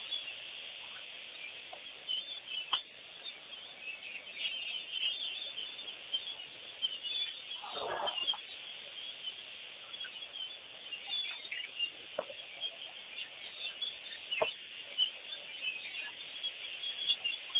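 Many wild birds chirping and calling together in a steady chorus, with a few louder single calls scattered through it. The loudest of these comes about halfway.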